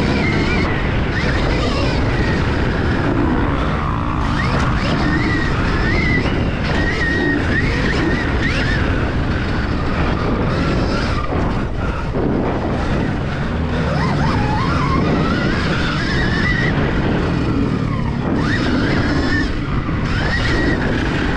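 Motocross dirt bike ridden at speed around a dirt track, its motor pitch rising and falling with the throttle over heavy rumble and wind noise.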